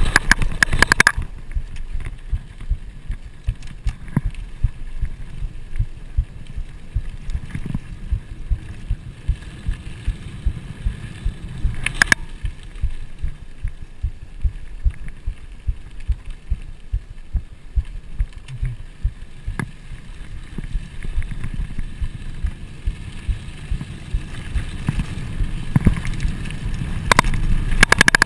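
Trek Fuel EX full-suspension mountain bike rolling fast over a dirt trail: a low wind rumble on the camera's microphone with constant rattling and knocking from the bike over the bumps. A sharp clack comes about twelve seconds in and a few more near the end, where the rumble grows louder.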